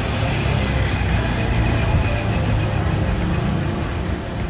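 Engines of small road vehicles passing close by: a motorcycle with a sidecar, then a small jeep, running steadily.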